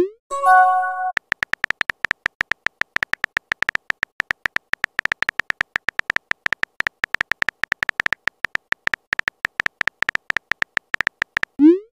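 Synthetic phone-keyboard typing clicks from a texting-story app, rapid and irregular, as messages are typed letter by letter. At the start a short rising whoosh of a message being sent is followed by a brief chime, and another send whoosh comes near the end.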